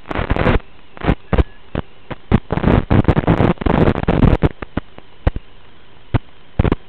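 Radio static from an analog FPV video link: a steady hiss broken by irregular crackles and short noise bursts, thickest in a busy stretch in the middle.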